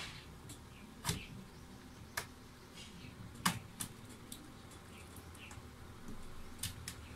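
Plastic snap clips of an Asus X556UQ laptop's bottom cover popping loose as it is pried open by hand. A few sharp, separate clicks come over several seconds, the loudest about three and a half seconds in.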